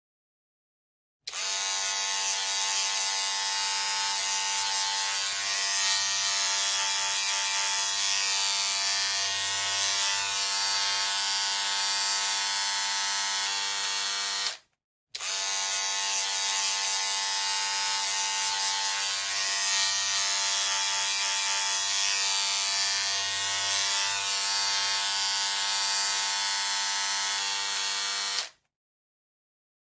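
Electric hair clipper buzzing steadily, running twice for about thirteen seconds each time with a short silence between.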